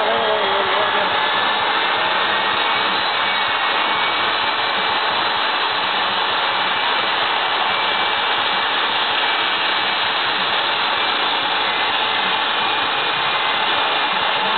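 Jet car's turbine engine running at steady power: a loud, continuous rushing noise with a faint high whine through it.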